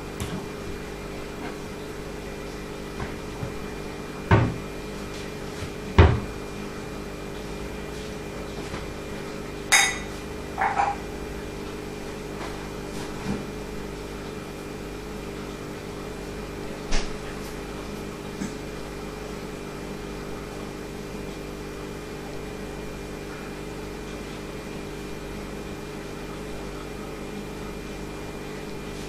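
Aquarium filter humming steadily, a low even drone with several fixed tones. A handful of short sharp knocks and glassy clinks break in over the first twenty seconds, the loudest a knock about six seconds in.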